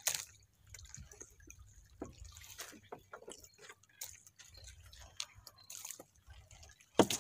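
Wet nylon gill net being hauled in and untangled by hand, seawater dripping from it, with small scattered ticks and taps. A single sharp knock near the end.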